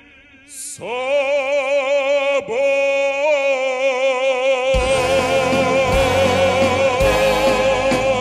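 A solo singer in operatic style holds long notes with wide vibrato, with a short break between notes about two and a half seconds in. About five seconds in, the full accompaniment comes in under the voice with a steady beat.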